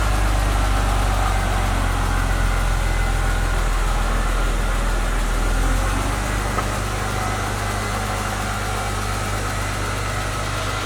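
A car engine idling steadily with a low hum.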